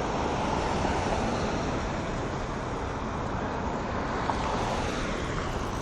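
Steady road-traffic noise: a continuous rumble and hiss of passing vehicles.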